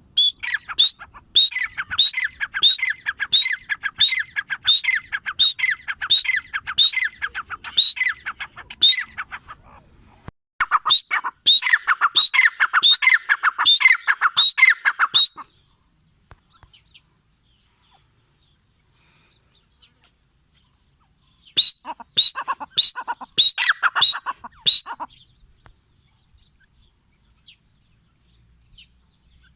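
Grey francolin calling: three bouts of rapidly repeated harsh, sweeping notes. The first lasts about nine seconds and the second about five. The third, shorter bout comes after a pause of several seconds.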